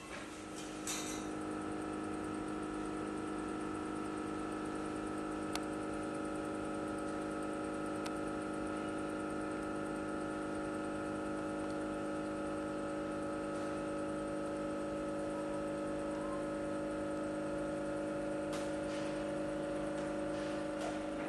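Electric hoist motor on an overhead gantry running steadily at a constant pitch as it lifts a boat hull, with one faint click about five seconds in.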